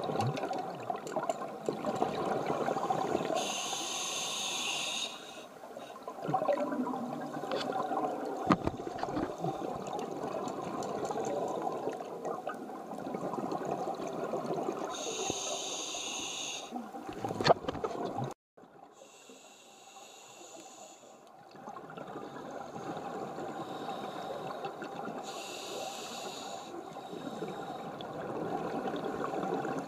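A scuba diver breathing through a regulator underwater, heard through a camera's waterproof housing. Short hissing inhalations come four times and alternate with long bubbling exhalations.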